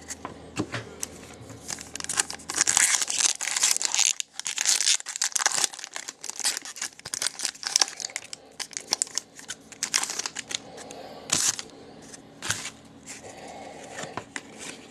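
Foil wrapper of a 2016-17 Upper Deck Trilogy hockey card pack crinkling and tearing as it is opened by hand, in runs of sharp crackles, heaviest in the first half and again about ten seconds in.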